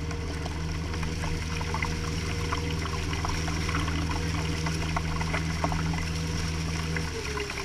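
Water rushing and splashing along the side of a moving boat's hull close to the waterline, over the steady hum of the boat's motor. The motor's pitch drops near the end.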